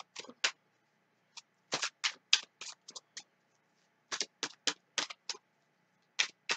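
Tarot deck being shuffled overhand from hand to hand: quick clicks of cards dropping onto the pack, in a few short runs with pauses between.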